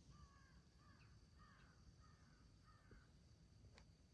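A crow cawing faintly, about five caws in a steady series roughly half a second apart, over quiet woodland background.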